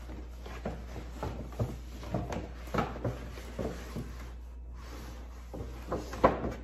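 Stiff paper shopping bag and cardboard rustling and scraping as contents are pulled out of the bag, with scattered short knocks and one sharper tap about six seconds in.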